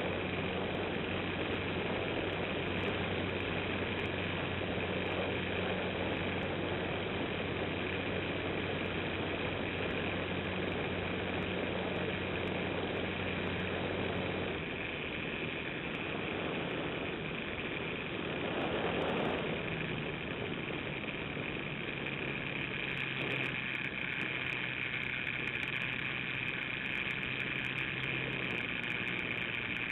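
Motor and propeller of a radio-controlled model plane in flight, heard from a camera mounted under its fuselage: a steady drone with air rushing past. About halfway through the drone's note drops away, swells briefly, then settles on a different steady note.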